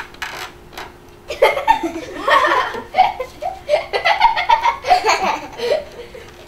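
Children laughing: a run of giggles and laughter that starts about a second in and dies away near the end.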